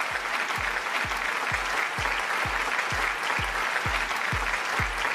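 Audience applauding over background music with a steady bass-drum beat, about two beats a second.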